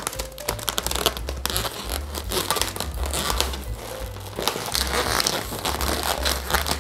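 Latex twisting balloon rubbing and crinkling against a clear PVC bubble balloon as it is stretched and pulled tight around it, a busy run of irregular crackles and rubbing noises.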